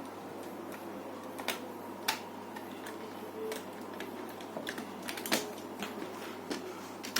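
Scattered sharp clicks and taps of small plastic laptop parts being handled and fitted during reassembly, irregular and a few seconds apart, the loudest about two seconds in and again a little after five seconds.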